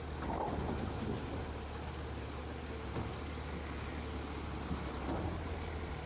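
Automated side-loader garbage truck running steadily while its hydraulic arm holds a trash cart tipped over the hopper to empty it, with a few faint knocks.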